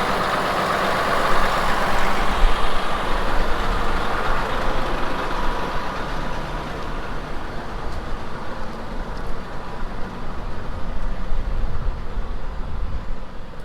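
Tractor engine running steadily while pulling a grain cart out, a dense mechanical noise with a deep rumble.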